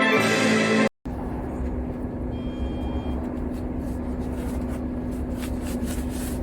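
Background music that ends at a hard cut about a second in. After it comes a steady low rumble with a constant hum, and a few faint clicks near the end.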